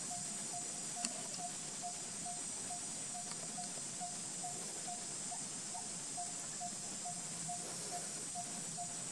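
Outdoor ambience: a steady high-pitched hiss with a short, low note repeating evenly a little over twice a second, and a single sharp click about a second in.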